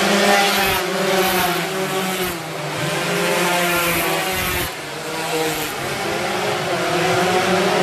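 A pack of 125cc underbone road-race motorcycles passing close through a tight corner, several engines revving at once, their pitch falling and rising as they slow for the bend and accelerate out.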